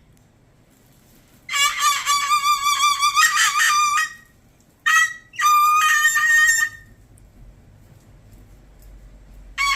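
Umbrella cockatoo giving its learned imitation of 'the most annoying sound in the world': a loud, wavering, drawn-out call. It comes as a long call of about two and a half seconds, a short blip, and another call over a second long, with a fourth starting near the end.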